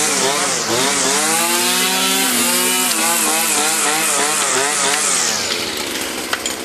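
Small two-stroke brush cutter engine revving up and down again and again. About five seconds in it falls back to a quieter, lower idle.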